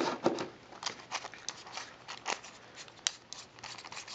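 Small clicks and scrapes of a weapon-mounted flashlight's head being screwed back onto its body by hand, the threads and parts rubbing and ticking irregularly.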